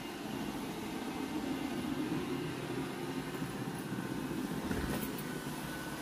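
iRobot Roomba i7 robot vacuum running over carpet: a steady hum of its vacuum motor and brushes, with one brief knock about five seconds in.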